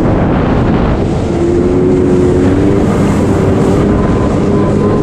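Wind buffeting the microphone and water rushing past the hull of a Taiga Orca Carbon electric jet ski running at high speed. From about a second in, a faint steady whine from its electric motor spinning the jet pump can be heard under the rush.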